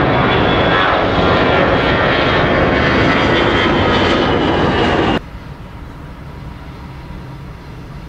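Lufthansa Boeing 747-400's four General Electric CF6 turbofans running loud: a heavy rush of jet noise with a thin steady high whine. About five seconds in it cuts off abruptly to a much quieter low rumble.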